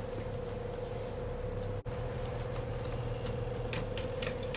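A Leopard 45 catamaran's diesel engines idling with a steady low hum and a steady mid-pitched whine over it, with a few sharp clicks near the end.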